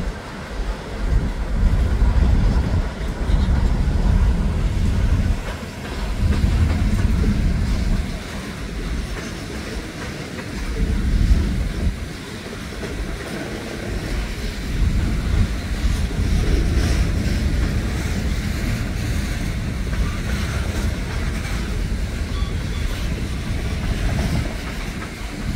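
Mixed freight train cars (covered hoppers, a tank car and gondolas) rolling past: a continuous low rumble that swells and eases, with the clatter of wheels over the rails.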